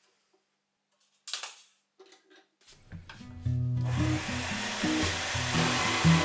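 A single sharp knock, a few light clicks, then a small metal-cutting bandsaw's motor starting and running steadily with a hiss and a thin whine. Background music with a bass line comes in under it.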